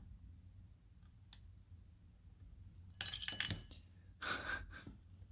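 A small steel tension wrench clinks against the lock as it slips out of the keyway: a quick cluster of sharp metallic clicks with a brief ring about three seconds in. A short sigh follows about a second later.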